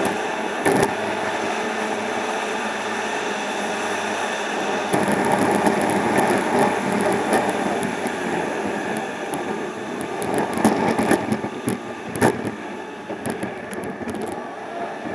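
Car driving, heard from inside the cabin: steady road and engine noise. From about five seconds in it turns rougher, with many sharp clicks and crackles.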